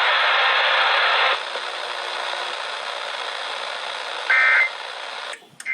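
Radio receiver static hiss, louder for about the first second and a half and then lower and steady, with one short burst of electronic beeping data tones about four seconds in. It cuts out near the end.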